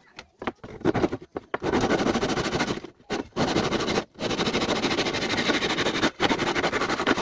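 Long rasping strokes of a carpenter's hand tool working wood: a few short scrapes, then four long strokes with short breaks between them.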